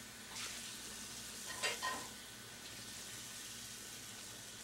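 Steady recording hiss from an old camcorder, with two brief faint squeaks from a newborn baby about a second and a half in.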